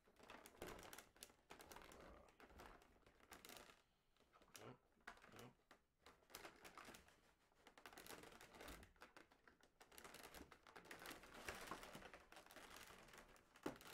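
Faint, irregular crinkling and clicking of a stiff clear plastic blister tray, handled and flexed while a twist tie holding the toy in is worked loose.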